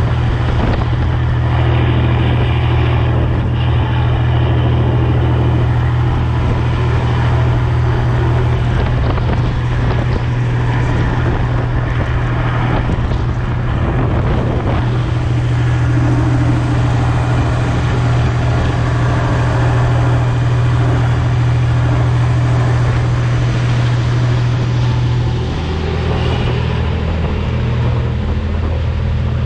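A tug's Caterpillar marine diesel engine running steadily under way, a deep even drone, with water rushing past the hull and wind on the microphone. Near the end the drone dips slightly and its tone changes.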